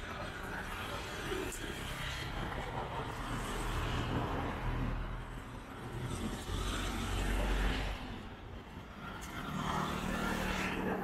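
Road traffic passing on a city street: a vehicle's engine rumble swells to its loudest about seven to eight seconds in and fades, and another engine comes up near the end.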